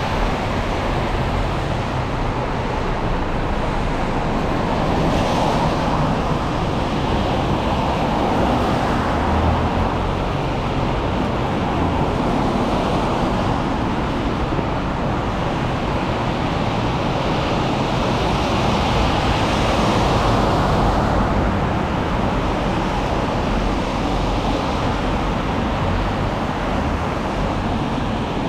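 Steady hiss of rain and wet-road traffic, swelling a few times as vehicles pass.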